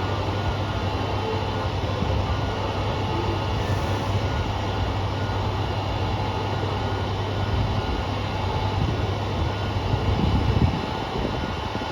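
KiHa 200 series diesel railcar idling steadily at a station platform, a constant low hum. An abnormal noise from car KiHa 200-1551 runs throughout the stop; the car was taken out of service the next day.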